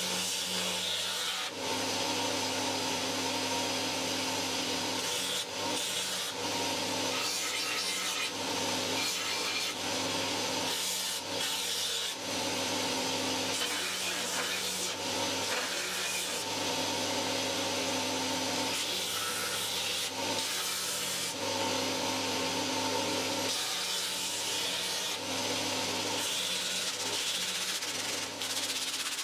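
Belt grinder running with a steady motor hum while its abrasive belt sands and shapes a wooden axe handle, a scratchy hiss that swells and eases from one pass to the next.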